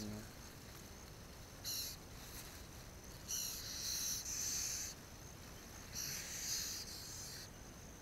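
Rice plants and grass rustling in three bursts, the last two longer, as hands push through the stems around a ground nest. A steady high insect buzz runs underneath.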